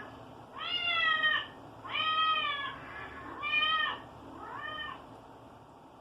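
Domestic cat meowing four times, each call rising and then falling in pitch; the last meow is fainter.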